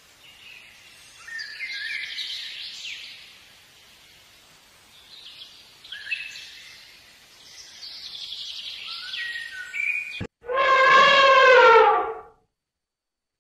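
Songbirds chirping and warbling in short bursts of phrases, then, after a click, an elephant trumpets once: a loud call of about two seconds that slides down in pitch.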